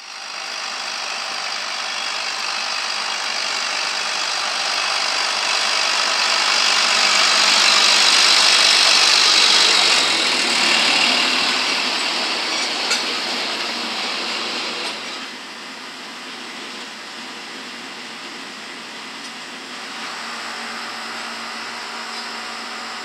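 Tractor engine running as a John Deere tractor pulls a John Deere 630 disk harrow past. It grows louder to a peak about eight to ten seconds in, then falls to a quieter, steady level after about fifteen seconds.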